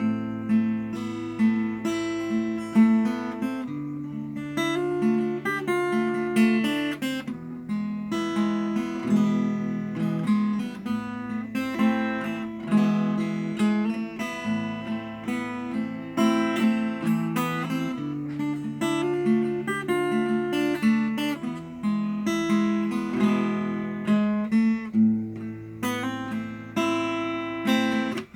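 Acoustic guitar being played: a stream of picked notes over a bass line that changes every second or two.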